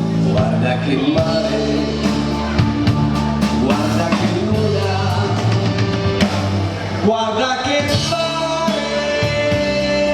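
Live dance band playing the closing bars of a slow song, with drum kit, bass and guitar under sustained notes.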